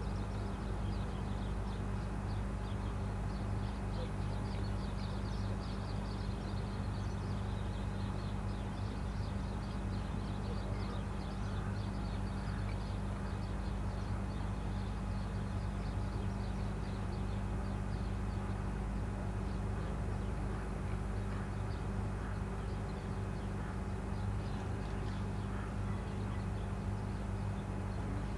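A steady low engine drone, with many short high bird chirps over it.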